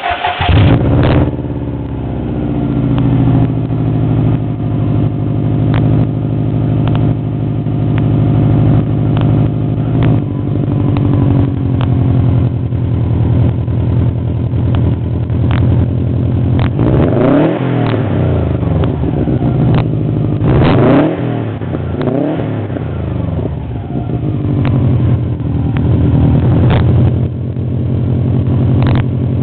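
2004 Subaru WRX's turbocharged flat-four engine, breathing through an aftermarket SR*S cat-back exhaust, starting with a brief flare and then idling steadily. About halfway through it is revved several times, each rev rising and falling back to idle.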